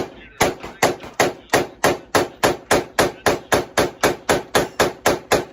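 Rapid semi-automatic gunfire at an indoor range: one loud shot, then a fast, evenly spaced string of about nineteen more, roughly three shots a second.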